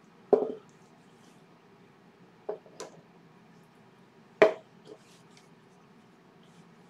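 A few scattered knocks and taps of wooden parts and a small board being set down on a workbench. A soft thud comes first, then two light clicks, and the sharpest, loudest knock comes a little past the middle.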